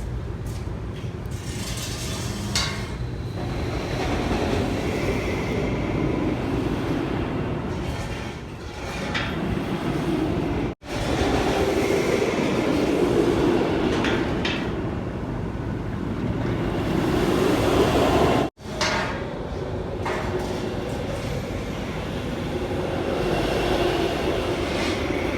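Ice Breaker launched steel roller coaster train running along its track on a test run, a steady rolling rumble with a few sharp clacks.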